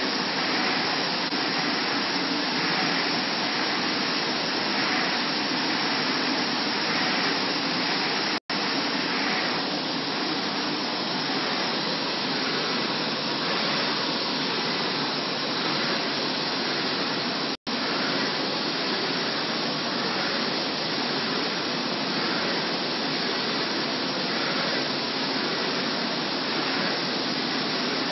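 MT LED flatbed UV printer running as it prints: a steady whoosh of machine noise with a faint regular pulse about once a second as the printhead carriage sweeps. The sound drops out for an instant twice.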